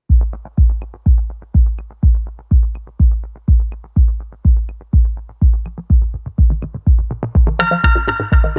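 Electronic dance music with a heavy kick drum on every beat, about two a second. A bright synthesizer layer comes in near the end.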